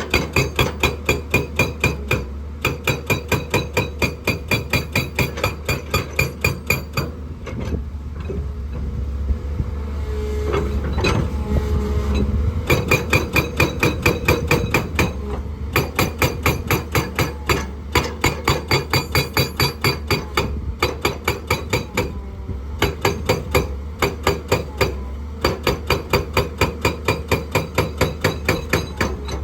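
Excavator-mounted hydraulic rock breaker hammering on hard rock in a rapid, even train of several blows a second. The blows pause briefly a few times, and about a third of the way in they stop for a few seconds while the machine keeps running.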